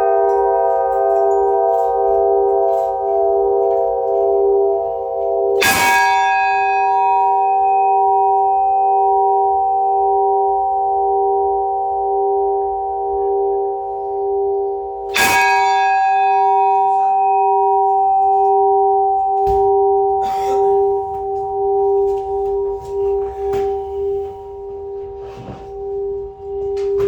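Church bell struck twice, about ten seconds apart, each stroke ringing on in a long decay with a low pulsing hum beneath: slow tolling that calls worshippers to a church service.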